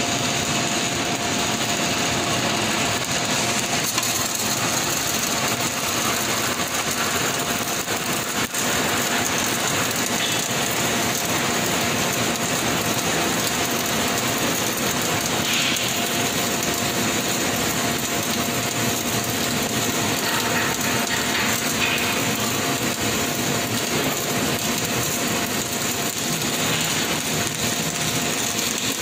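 Wire-fed robotic arc welding: the arc runs continuously with a steady hiss while the robot lays a weaving (swing-arc) weld. A faint steady whine sits underneath.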